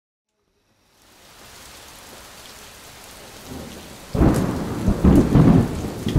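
Rain fading in after a second of silence, then a sudden loud rumble of thunder about four seconds in, rolling on with crackles.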